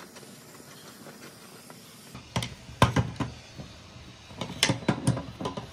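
Sharp metal clicks and clinks of a wrench working a nut on threaded rod inside a galvanized steel bracket, as the star-bolt rod is snugged tight. A few clicks come a little under halfway in, then a quicker cluster near the end.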